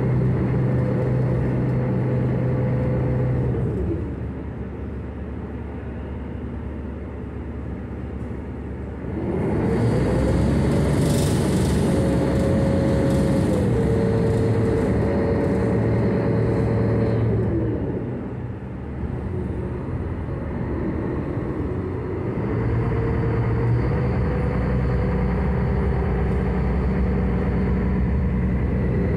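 The Victory pirate ship's engine heard on board, a steady hum over a low rumble. Its pitch and loudness drop about four seconds in, come back up around ten seconds, then drop and rise once more, as the ship slows and speeds up.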